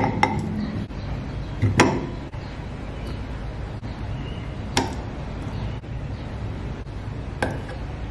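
Metal spoon knocking against a plastic mini-chopper bowl as boiled potato chunks are tipped in: a handful of sharp knocks a few seconds apart, over a steady low hum.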